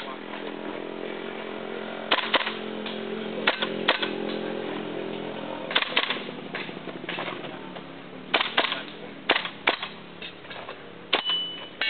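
Airsoft rifle firing sharp shots in quick pairs and triples with short pauses between, as the shooter moves from target to target.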